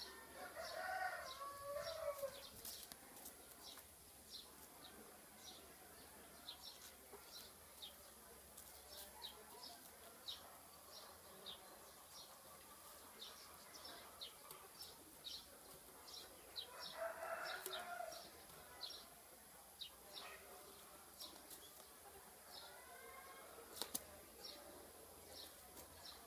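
A rooster crowing twice, about a second in and again about 17 seconds in, over a steady series of faint, high, short chirps.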